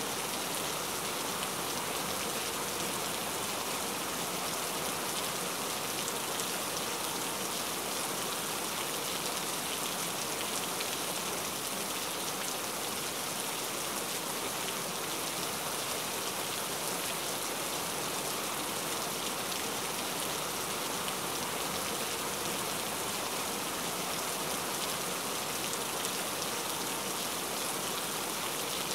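Steady rain, an even hiss of many falling drops, used as relaxing background ambience.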